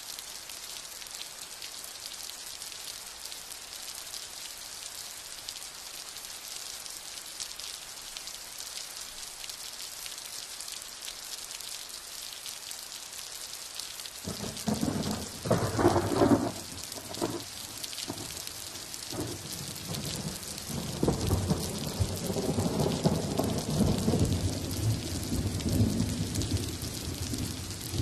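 Steady rain falling, a constant hiss. About halfway through, thunder rumbles briefly, then a longer rolling rumble of thunder follows near the end.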